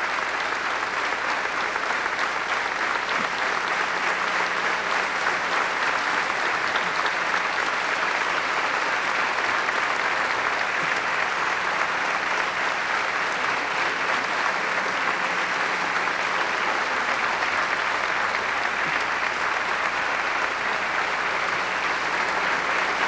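Audience applauding steadily, a sustained ovation for an award recipient.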